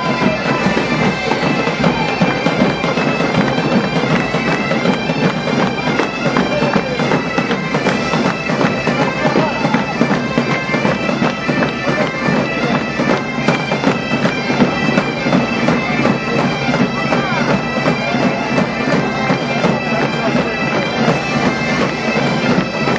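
A large band of gaitas-de-foles (Iberian bagpipes) playing a tune together over their steady drone, with snare drums and bass drums beating time underneath.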